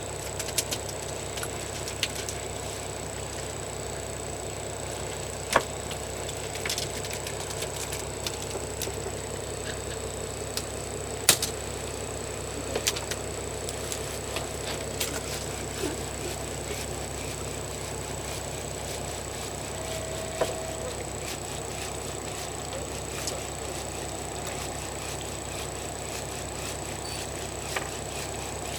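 Fishing boat's engine running with a steady hum and a thin high whine, with scattered sharp clicks and knocks, the loudest about five and eleven seconds in.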